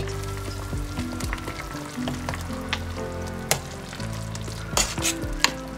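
Beef-meatball broth bubbling in a stainless steel pot while a metal ladle stirs it, clinking sharply against the pot a few times in the second half. Background music with steady notes plays under it.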